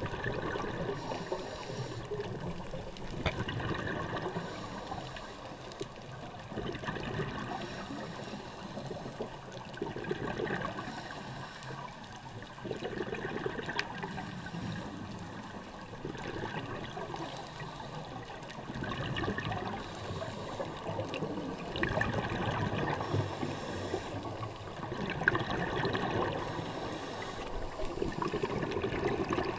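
Underwater sound of scuba divers breathing through their regulators: exhaled bubbles gurgling and hissing in repeated bursts about every couple of seconds over a steady watery rush.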